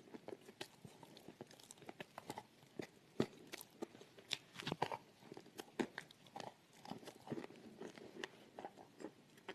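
Close-up chewing and crunching of a crunchy homemade cream in the mouth: irregular soft crunches and clicks, a little busier around the middle.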